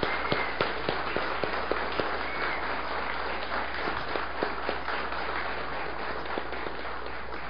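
Audience applauding, a dense crowd of hand claps that thins slightly toward the end.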